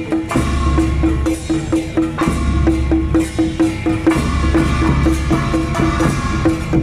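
Temple procession gong-and-drum troupe playing. Many small hand gongs are struck with sticks in a steady, ringing beat of about three strokes a second, over tacked barrel drums beaten in rolls that come and go.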